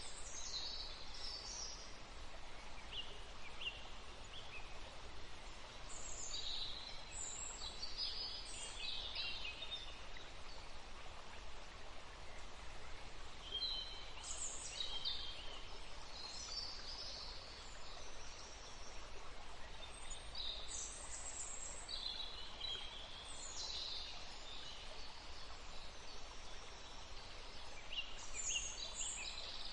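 Forest songbirds chirping and calling in short clusters of high notes every few seconds, over the steady hush of a gentle breeze.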